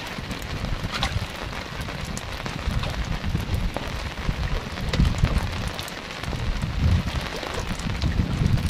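Heavy rain falling on the sea and an open wooden boat: a steady hiss with many sharp drop ticks close by, over a low gusty rumble that swells a couple of times.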